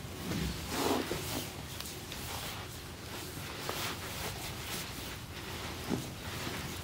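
Hands rubbing and pressing on skin in a massage, a soft irregular rustling friction with a brief swell about a second in and a light tick near the end.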